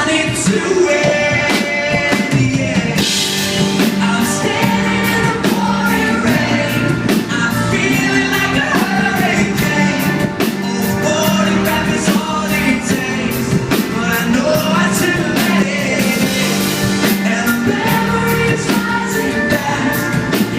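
Pop-rock song playing with a steady drum-kit beat and singing.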